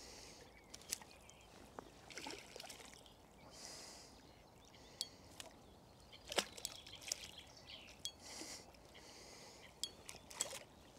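Hooked bream splashing faintly at the water's surface as it is played in close, in several short splashes, with a sharp click about six seconds in. Near the end a landing net goes into the water under the fish.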